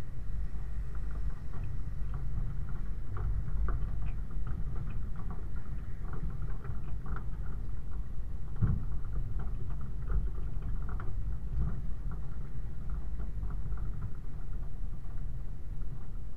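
Land Rover 90 driving slowly over a rocky, waterlogged track, heard from a camera mounted on its rear: a steady low rumble with frequent small knocks and rattles from the body and the stones under the tyres.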